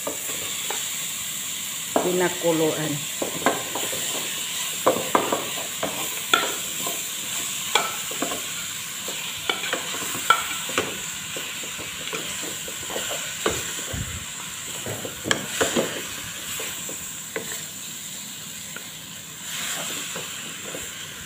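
Spoon and wooden spatula scraping and knocking against a metal cooking pot as boiled potatoes are dropped in and stirred into a peas-and-spice mixture, with short irregular clacks throughout over a steady sizzle.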